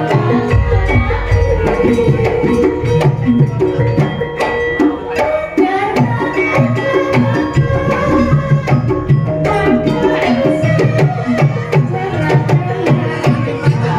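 Javanese gamelan ensemble playing a gending: bronze metallophones and gongs ringing in held, overlapping tones over a steady rhythm of hand-drum strokes.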